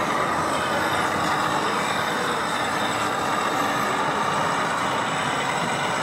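Radio-controlled scale model trucks running, with a steady truck-engine sound.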